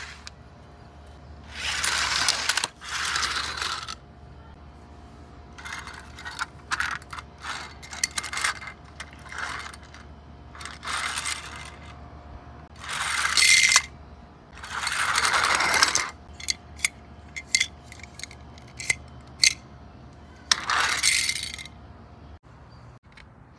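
Plastic toy cars handled on a concrete floor: a string of scraping rolls, each lasting a second or two, with sharp clicks and clatters between them, several in quick succession near the end.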